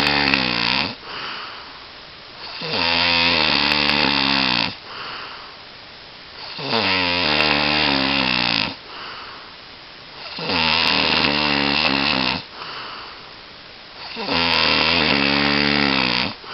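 A person snoring in sleep: a buzzing snore about two seconds long, repeating about every four seconds, four full snores and the tail of one, with a softer breath sound after each.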